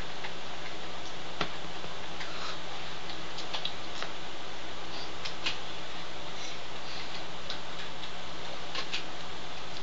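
Steady recording hiss with a low electrical hum, and scattered small clicks and ticks at irregular times.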